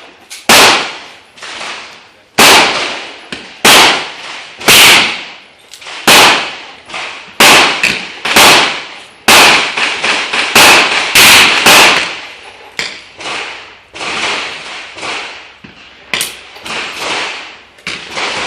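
Large-calibre handgun fired shot after shot: about eleven loud, sharp reports roughly a second apart, each with a short ringing tail, then fainter shots through the last six seconds.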